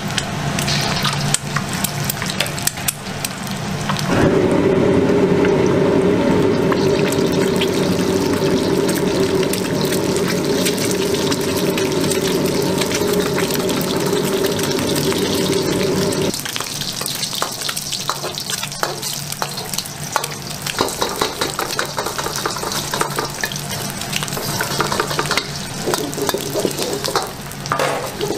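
Eggs frying in hot oil in a wok, a steady sizzle full of small crackles and pops. A steady low hum sits underneath from about four seconds in and stops a little past halfway.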